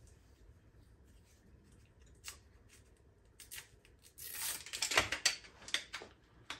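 Aluminium alloy leg frame of a folding camp table being handled and unfolded: a few faint clicks, then from about four seconds in a quick run of metallic clicking and rattling as the legs swing open.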